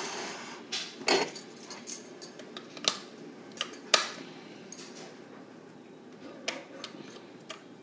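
Metal beaters clicking and clinking as they are pushed into an electric hand mixer, the mixer switched off: a string of sharp separate clicks, the loudest about a second in and about four seconds in.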